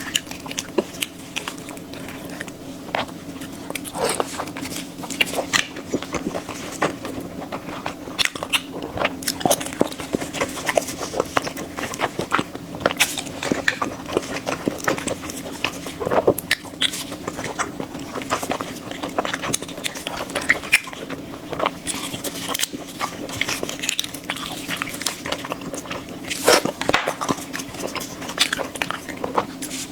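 Close-miked eating sounds: irregular bites, chews and mouth smacks, over a steady low hum.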